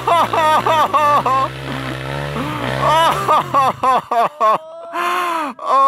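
A dirt bike engine running steadily under load on a hill climb, falling away about four seconds in. Over it come quick bursts of excited, high-pitched shouting.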